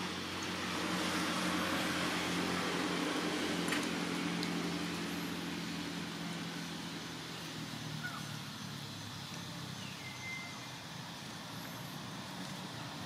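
A motor vehicle's engine running nearby, a steady low hum that grows louder over the first couple of seconds and then slowly fades.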